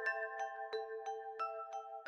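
Background music: a gentle melody of bell-like struck notes, like a glockenspiel or music box, about five notes a second, each ringing on briefly.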